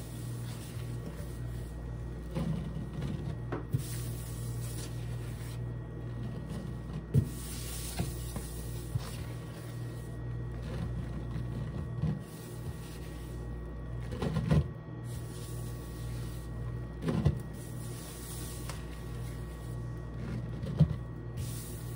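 A sponge loaded with cleaning powder being squeezed and tapped, giving short soft thumps and knocks every few seconds over a steady low hum.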